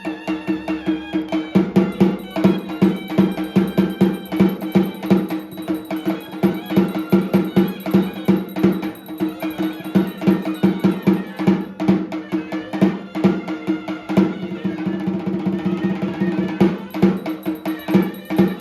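Traditional music: fast, steady drumming over a continuous low drone.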